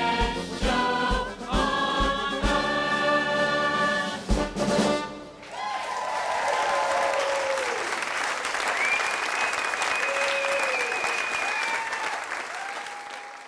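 A live stage band with brass and a choir plays the final bars of a show number, with regular heavy drum hits, ending about five seconds in. Then the audience applauds and cheers, the clapping fading out at the very end.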